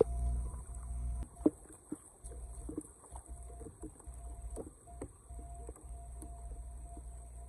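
Footsteps wading through shallow floodwater on a road: a series of irregular short splashes, the loudest about a second and a half in, over a steady high hiss. A low rumble fills the first second or so.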